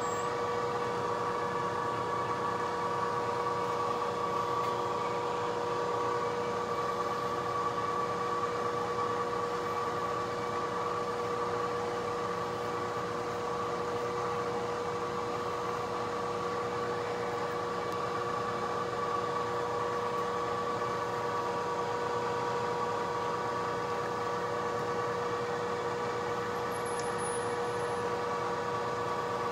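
Milling machine spindle running with a steady whine while a twist drill bores bolt holes through a steel plate.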